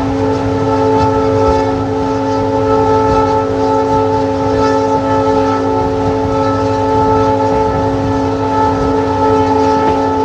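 EMD WDP-4B diesel locomotive's air horn held on continuously: one long, unbroken chord of several steady tones over a low rumble from the train.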